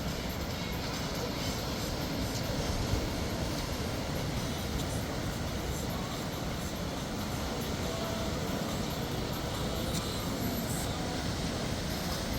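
Sea waves washing onto the beach, a steady rush of surf with no single break standing out.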